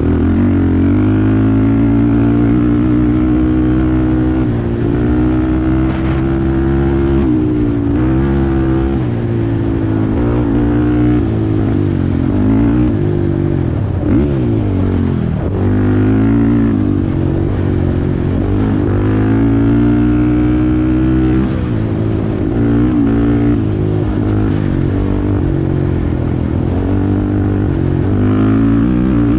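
Honda TRX450R quad's single-cylinder four-stroke engine under way, revving up and down as the throttle is opened and backed off, its pitch rising and falling again and again.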